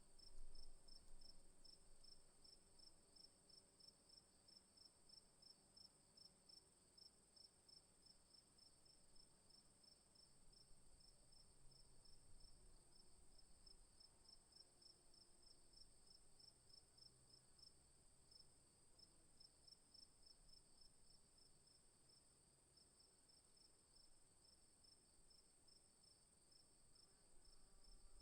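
Faint insects, likely crickets, chirping steadily in an even, rapid high-pitched pulse, with a continuous high hum underneath.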